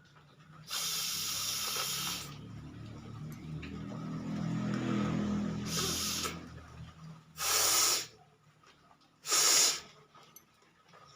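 A person with a head cold forcefully blowing and snorting through the nose: a long hissing blow about a second in, then a lower, rattling breath through the nose, and two short, sharp nasal blasts near the end.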